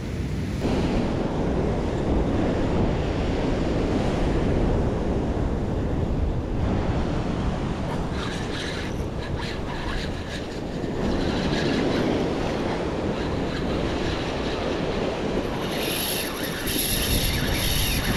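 Ocean surf churning and breaking against rocks, with wind buffeting the microphone.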